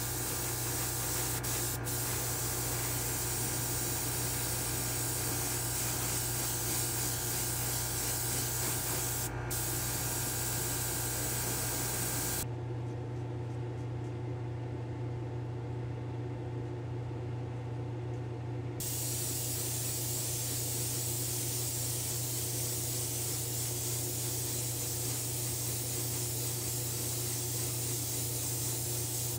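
Gravity-feed airbrush spraying paint, a steady hiss of air and paint over a steady low hum. The hiss stops suddenly a little before halfway, leaving only the hum for about six seconds, then starts again.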